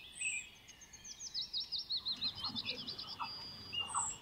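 Birds singing among the trees: a quick run of repeated short chirps in the middle, with a few sharp high calls near the start and end.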